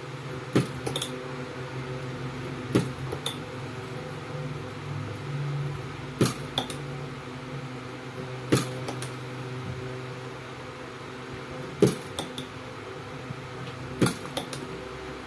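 Battery cell spot welder firing: sharp metallic snaps, mostly in pairs about half a second apart, every two to three seconds, as nickel strip is welded onto the cells, over a steady hum.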